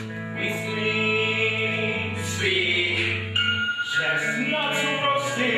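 Voices singing sustained chords in harmony over held low bass notes. The chord changes about two seconds in, and a new one starts after a short break near four seconds.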